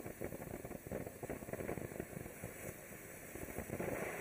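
Low-noise fountain firework burning with a steady hiss and sputter, without bangs or whistles. It grows a little louder near the end as it changes to a gold spray.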